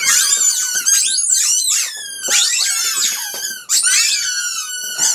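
Rubber squeaky chickens squawking as they are stepped on, many shrill squeals overlapping one after another, each sliding in pitch.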